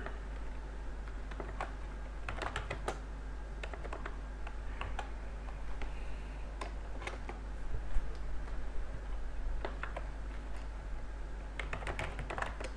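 Computer keyboard typing: irregular keystrokes in short runs with pauses between them, over a low steady hum.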